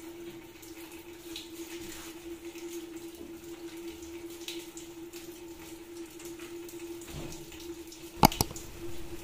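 Soft scraping and handling of plastic PVC pipe pieces being fitted against a PVC door, over a steady low hum. Two sharp clicks come close together near the end.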